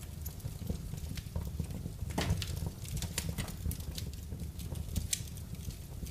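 Wood fire burning in a fireplace: irregular crackles and pops over a low, steady rumble of flame, with a cluster of louder pops about two seconds in.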